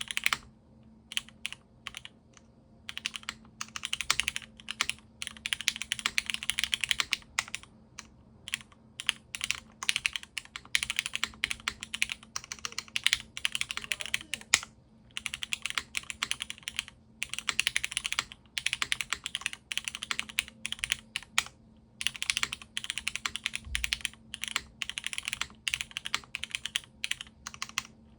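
Typing on a custom mechanical keyboard with diamond-paste-polished Cherry MX Black linear switches in a full aluminium plate, O-ring mounted, with GMK keycaps. The keystrokes come in rapid runs of a few seconds with short pauses between them.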